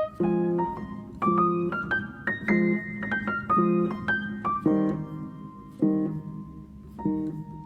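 Background music: a piano playing a melody over chords, notes struck a few times a second and left to ring out.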